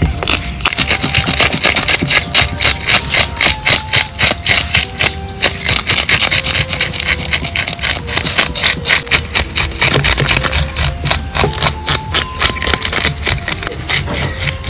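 Rapid knife chopping on a cutting board, about five strokes a second, pausing briefly about five seconds in, over background music.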